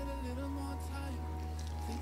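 Background music with a slowly moving melody over held notes.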